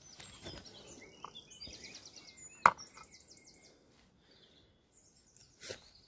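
Songbirds singing in short high warbles and quick looping trills. One sharp click about two and a half seconds in is the loudest sound, with a smaller click near the end.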